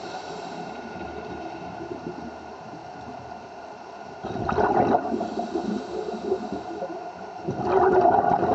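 Water sloshing and gurgling over a steady mechanical hum, with louder surges of water about four seconds in and again near the end.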